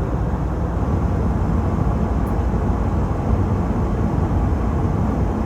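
Steady cabin noise of an Airbus A320 airliner descending: a constant low rumble of engines and airflow heard from inside the passenger cabin.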